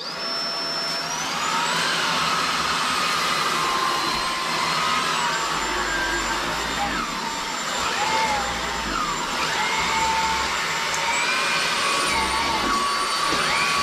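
Bosch Unlimited 7 cordless stick vacuum running on carpet. Its motor whine rises as it spins up over the first couple of seconds, then holds steady over a constant rush of air, the pitch shifting slightly now and then as the floor brush digs into the carpet.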